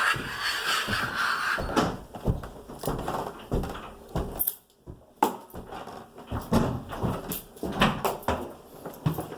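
Irregular knocks and clatter from things being handled, with a rustling hiss in the first second or so.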